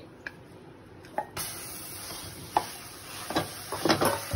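Mashed boiled potatoes dropped into a nonstick kadai of hot oil and spices, with a steady sizzle starting suddenly about a second in. A wooden spatula then scrapes and knocks against the pan four or five times.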